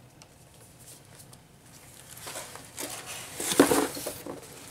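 A paperback book being handled, its pages rustling and flipping in a few short strokes that start about two seconds in, the loudest a little past the middle.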